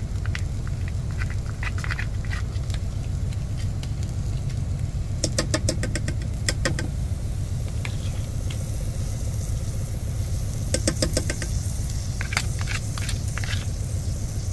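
Big-rig diesel engine idling as a steady low rumble. A metal utensil scrapes and taps in quick clusters about five seconds in and again about eleven seconds in, as beef fat is scraped into the Instant Pot.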